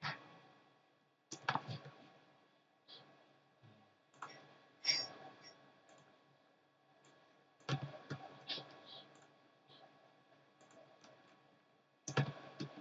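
Computer mouse clicks and keyboard key presses, sharp and irregular, coming singly or in quick pairs every second or two.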